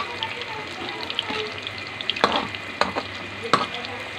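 Tofu blocks frying in hot oil in a metal pan: a steady sizzle with crackling pops. Three sharp knocks in the second half, from the utensil turning the tofu against the pan.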